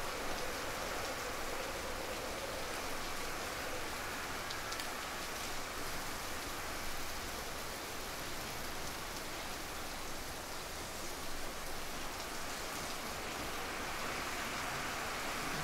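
Steady rain falling, with occasional faint ticks of single drops.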